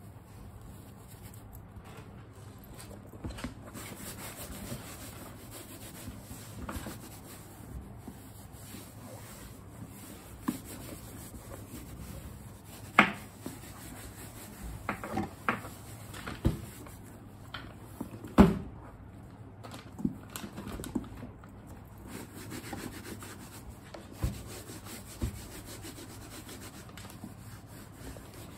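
Wet wipe rubbing over the outside of a pebble-leather handbag to clean it, a soft, steady scuffing, broken by several sharp knocks and clicks as the bag and its fittings are handled, the loudest about a third and two thirds of the way through.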